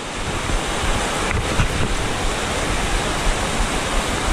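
Wind buffeting an outdoor microphone: a steady rushing noise with irregular low rumbling gusts.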